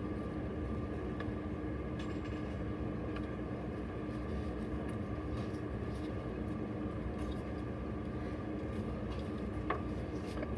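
Steady mechanical hum in the room, with a few faint taps and scrapes of a toothbrush working copper patina onto a soldered glass piece.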